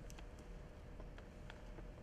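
Quiet room tone with a steady low hum and a scattering of faint small ticks.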